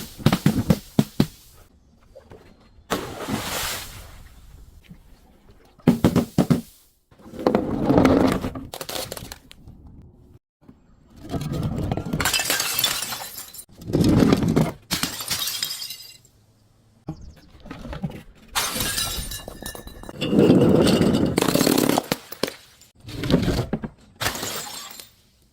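Glass and other brittle objects breaking and being crushed in a series of separate crunching, shattering bursts, each lasting a second or two with short pauses between.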